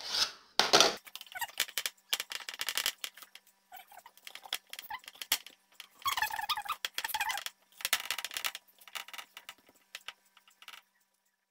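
Hands pressing and tucking soft, butter-coated dough pieces on a wooden board: sticky handling noises and small knocks on the board, in several bursts with short pauses.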